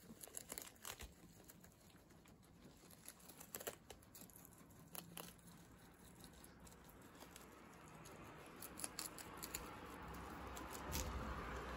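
Guinea pigs chewing and tearing lettuce leaves: a run of faint, quick crunches and crinkling leaf rustles. A steady low hiss and hum grows in the second half.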